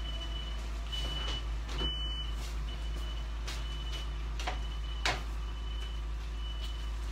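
Kitchen handling noises: several clicks and knocks as things are moved about, the loudest about five seconds in. Underneath are a steady low hum and a faint high beep repeating about once a second.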